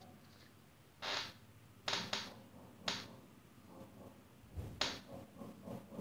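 Hands pressing and tossing raw chicken pieces in dry rolled oats in a plastic box: about five short, crunchy rustles as the oats are packed on.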